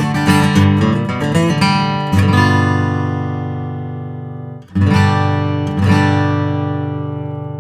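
Gibson Southern Jumbo True Vintage, a slope-shouldered acoustic guitar with solid mahogany back and sides, being played. It opens with quick picked notes, then has strummed chords about two, five and six seconds in, each left ringing and slowly fading.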